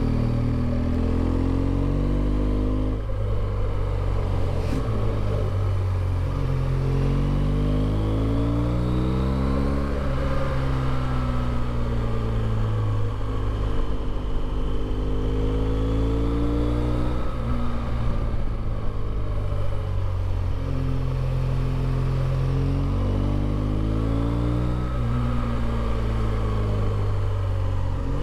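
BMW R1200GS LC's liquid-cooled boxer twin engine running under way. Its pitch rises and falls several times as the rider accelerates and eases off.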